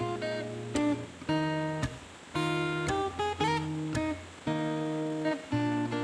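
Background music: an acoustic guitar strumming chords, changing chord every half second to a second.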